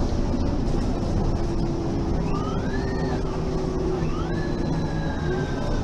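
Mercedes-Benz facelift city bus running, its engine a steady low drone. A whine climbs about two seconds in and breaks off a second later, then climbs again and slowly sinks, as the bus pulls through its gears.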